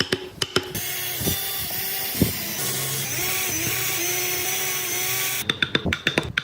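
Handheld power tool running against wood for about five seconds, its motor pitch dipping and recovering as it bites into the work. Music with a clicking, percussive beat plays briefly before it starts and again after it stops.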